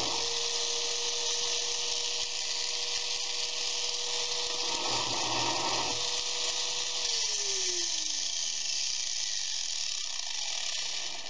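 Two Harbor Freight angle grinders running free with no load: a steady whine with some rattle. About seven seconds in, one is switched off and its pitch falls as it winds down, while the other keeps running. The older grinder shakes and rattles more, which the owner puts down to more worn bearings.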